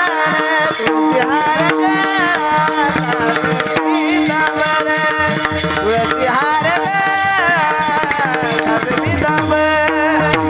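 Marathi kirtan music: a male voice sings a long, ornamented devotional line that glides and bends. It is backed by steady held drone tones and pakhawaj hand-drum strokes.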